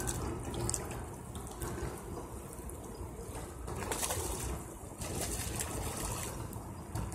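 River water splashing and trickling around hands in the shallows as a catfish is released. The splashing gets louder about four seconds in and goes on to near the end.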